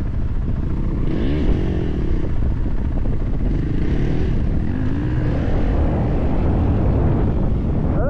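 A dirt bike engine revving up and falling back, about twice, under heavy wind buffeting on the microphone.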